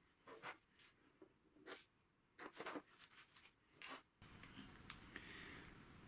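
Faint handling of hand tools and wire on a tabletop: a few short scrapes and clicks, then a steady low hiss from about four seconds in.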